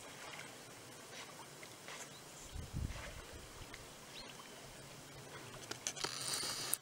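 Quiet outdoor ambience by still water: faint, even background noise, with a soft low thump about three seconds in and a brief hiss near the end.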